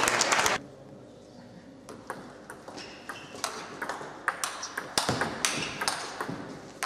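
Table tennis rally: the ball clicks sharply off the bats and the table, about two hits a second, starting about two seconds in. Before that, a loud burst of noise cuts off about half a second in.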